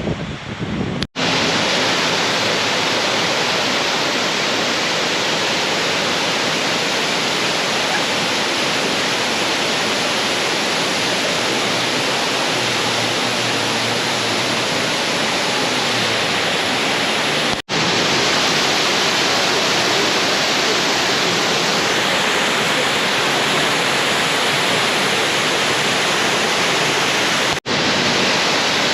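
Waterfall rushing: a loud, steady roar of falling water, briefly cut off three times, about a second in, around the middle and near the end.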